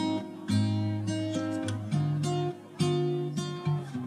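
Background music: strummed acoustic guitar chords, a new strum every second or so.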